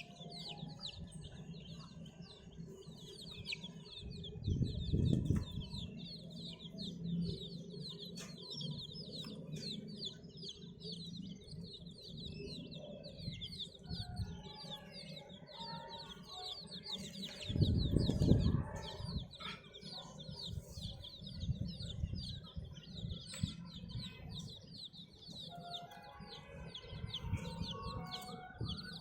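A group of baby chicks peeping continuously in fast, high, overlapping cheeps. Two louder low bumps or rustles come about five seconds in and again past the middle.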